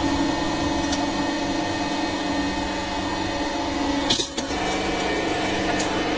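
Hydraulic press's pump motor running with a steady hum as the ram crushes a baseball, with one brief sharp noise about four seconds in.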